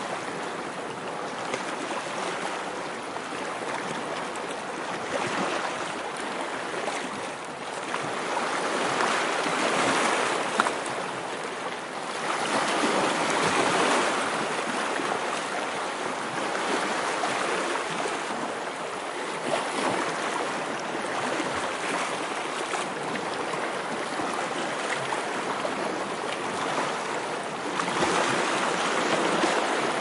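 Sea waves washing ashore in a steady rushing wash that swells and eases several times, loudest a little before and after the middle and again near the end.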